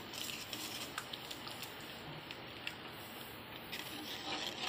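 Water boiling in an aluminium kadai, a faint bubbling hiss with scattered light clicks of a steel spoon against the pan. Near the end the level rises briefly as rava (semolina) is poured into the boiling water and stirred.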